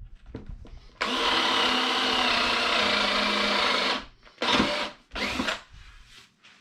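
Power drill boring a hole through a wooden board: the motor runs steadily at an even pitch for about three seconds, then gives two short bursts.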